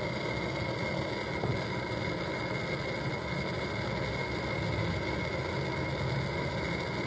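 Butane canister blowtorch burning steadily: an even hiss with a faint high whistle.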